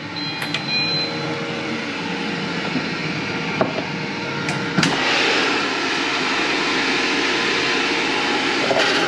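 Philips airfryer being loaded and switched on: a few clicks and knocks and a short high beep, then its fan starts about five seconds in with a steady rushing hum.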